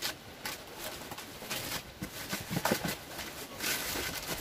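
Thin plastic bag rustling and crinkling in quick, irregular bursts as a packed item is pulled out of its wrapping. A few short low tones sound about two and a half seconds in.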